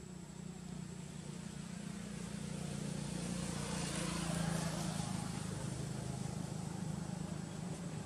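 Steady low engine hum of a motor vehicle, growing louder over the first few seconds and loudest about four to five seconds in.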